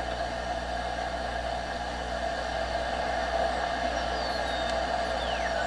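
Audio from a Vectronics 40-metre direct-conversion receiver kit: a steady hiss of band noise as the tuning knob is turned. Near the end a few faint whistles slide down in pitch as it tunes across signals.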